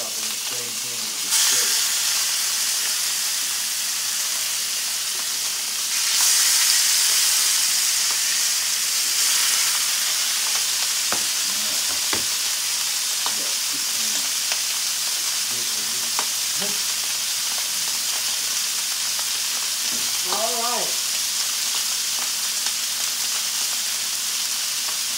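Steaks searing in hot oil in cast iron skillets: a steady sizzle that grows louder about a second in and again about six seconds in as more meat goes into the pans, with a few light knocks of tongs and pans.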